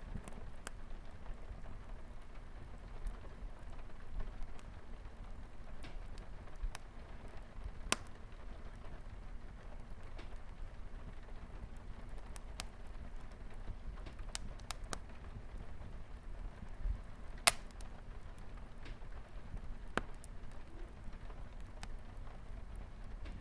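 Wood fire crackling in a fireplace, scattered sharp pops over a steady patter of light rain on a window.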